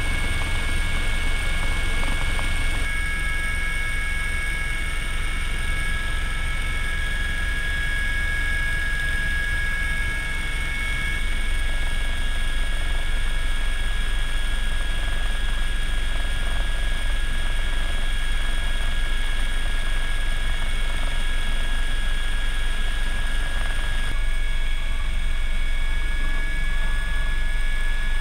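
Cabin noise of a UH-72A Lakota helicopter in flight, powered by twin turboshaft engines. A steady low rotor rumble lies under several steady high-pitched whine tones, which shift a little a few seconds in and again near the end.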